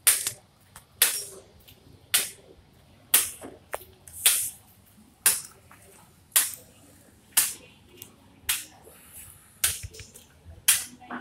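Sharp, bright clacks at an even beat, about one a second, with a few fainter clicks in between.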